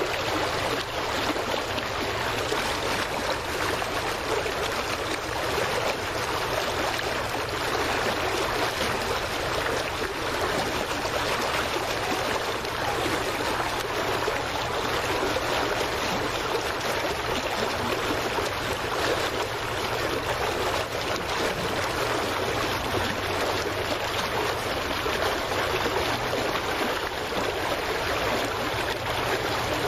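Steady rush of water splashing and lapping close to the microphone, with a faint low hum underneath.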